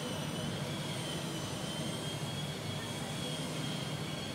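Steady background hum and hiss with a thin, high, steady whine running through it.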